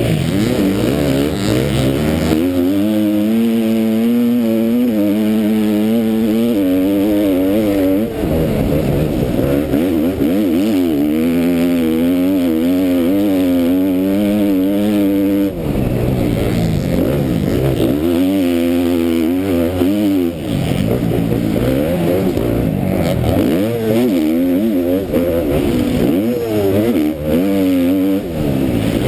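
KTM motocross bike engine racing hard, its pitch climbing and falling again and again as the rider works the throttle and gears, with brief drops when he shuts off, over a steady rushing noise, heard from the rider's helmet camera.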